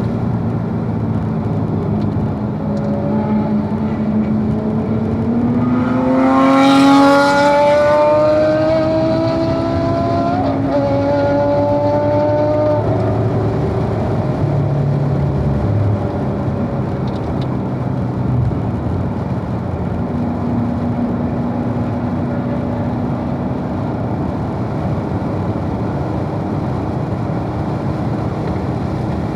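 Corvette engine under hard acceleration on track: the revs climb from about four seconds in to the loudest point near seven seconds, with pitch changes around ten and thirteen seconds, over steady wind and tyre noise.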